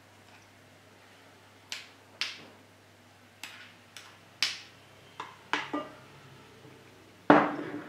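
A spoon clinking and knocking against a glass jar and the pot rim while thick plum butter is ladled into jars: a string of short, sharp clinks, with a louder knock that rings on briefly near the end.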